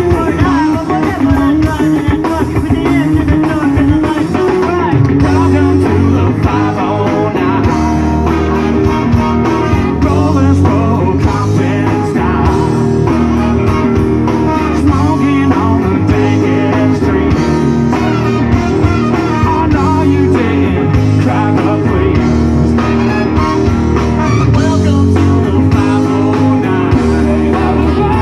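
Live band playing a rock tune, electric guitar and drums loud and steady, with a voice singing over it.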